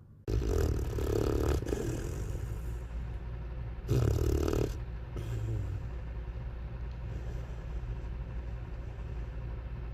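A puppy snoring: two long snores, one just after the start and one about four seconds in, then the snoring stops. A steady low hum runs underneath.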